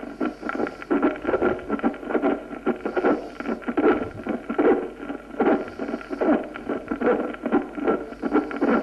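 Pericardial friction rub heard through a stethoscope: a rough rubbing sound that rises and falls over and over, from epistenocardiac pericarditis following an anterior-wall myocardial infarction. It cuts off suddenly near the end.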